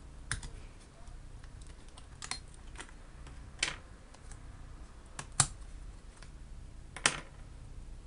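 Irregular sharp clicks and small taps, about six in eight seconds with the loudest about five and a half seconds in, as the old laptop RAM modules are unclipped from their spring latches and pulled out of their slots.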